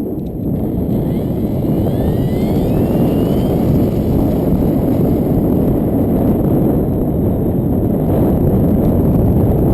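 Strong wind buffeting the microphone: a loud, steady low rumble. Between about one and three and a half seconds in, a faint rising whine from the electric motor of a foam RC aerobatic plane.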